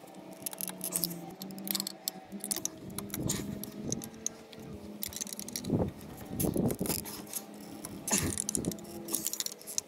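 Metal tools and parts clinking, clanking and scraping in irregular knocks: hand work with wrenches and bolts on the engine's fan and cooling parts.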